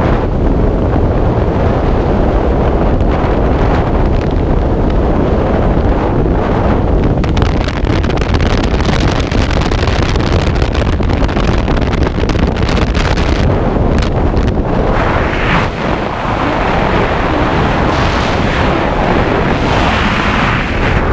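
Skydiving freefall wind rushing loudly over a jumper-worn camera's microphone, a steady roar of wind noise. About three-quarters of the way through it dips briefly, then carries on with more hiss.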